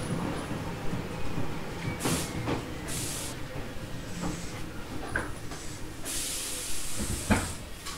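Tobu 850-series electric train (car MoHa 854-1) coming to a stand at a station: short hisses of compressed air from its pneumatic equipment about two and three seconds in and a longer one about six seconds in, with a few clunks over a low rumble.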